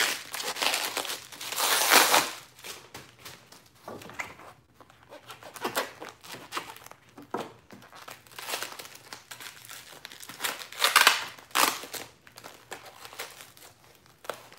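Packaging wrap crinkling and tearing as a wrapped crystal is slit with a knife and pulled open by hand, in irregular rustling bursts, loudest about two seconds in and again around eleven seconds in.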